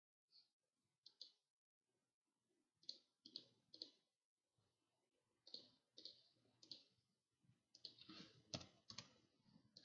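Faint clicks of a computer mouse and keyboard, single clicks spaced a second or so apart, then a quicker run of clicks near the end.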